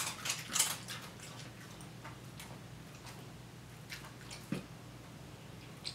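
A dog crunching a crab chip: a quick run of crisp crunches in the first second, then a few faint clicks of chewing.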